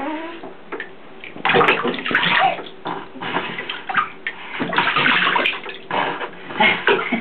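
Shallow bath water splashing and sloshing as a baby is bathed in a tub, coming in irregular surges, the loudest about a second and a half in and again around five seconds in.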